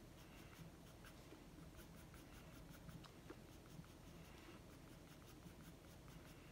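Faint pencil strokes on paper: short, light scratches repeated at an uneven pace as a pencil shades on a paper sheet.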